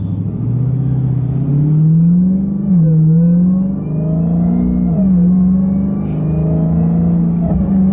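Supercharged 6.2-litre HEMI V8 of a 2021 Dodge Charger Hellcat Redeye accelerating from a standstill under eased-in throttle, with supercharger whine. The engine note climbs in pitch and drops back twice as the automatic gearbox upshifts, then holds steadier.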